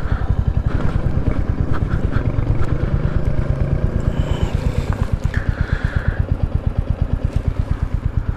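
Royal Enfield Hunter 350's single-cylinder four-stroke engine running as the motorcycle rides along, its exhaust beating in a steady, even pulse.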